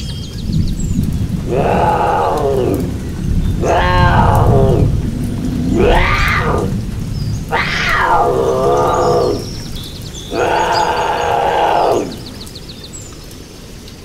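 Leopard calls: five separate drawn-out cries, each one or two seconds long, rising and then falling in pitch, over a steady low rumble.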